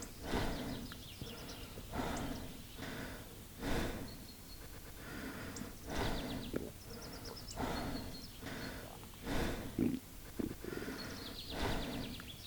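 Stomach growling: a string of rumbles and gurgles coming every second or two, with a short groaning growl about ten seconds in.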